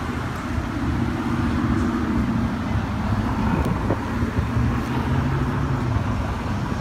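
Steady rumble of motor-vehicle traffic and running engines.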